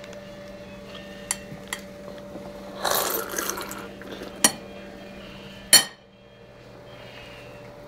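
A toddler spitting milk into a bowl of cereal: a short sputtering splash about three seconds in. Several sharp clicks and knocks sound around it, the loudest just before six seconds, over a steady low hum.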